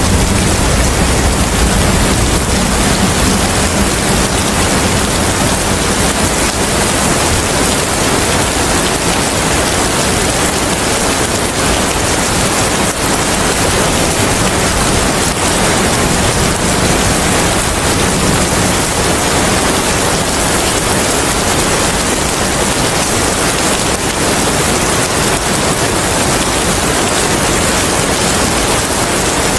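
Steady rain, an even dense hiss, with a low rumble dying away over the first few seconds.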